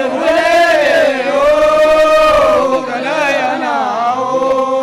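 Voices chanting a traditional Oromo song in Afaan Oromoo, with long held notes that glide up and down.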